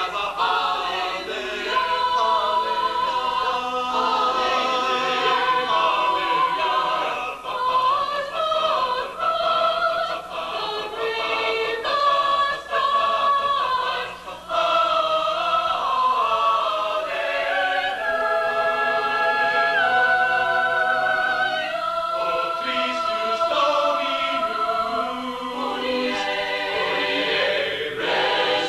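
A choir singing a Christian song in harmony, with several voice parts holding and moving between long notes together.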